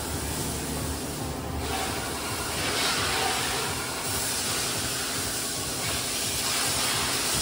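High-pressure water jet hissing as it sprays the underside of a car raised on a lift. The spray thins briefly about one and a half seconds in, then comes back stronger as the jet is moved.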